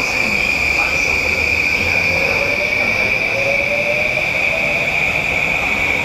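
E235 series electric commuter train pulling out of the platform, its Mitsubishi full-SiC VVVF inverter and traction motors giving a steady high tone with a lower whine that rises in pitch as the train gathers speed.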